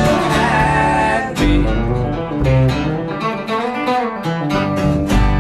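A live blues trio plays an instrumental passage on electric guitar, acoustic guitar and plucked upright double bass. Near the end a chord is struck and left ringing.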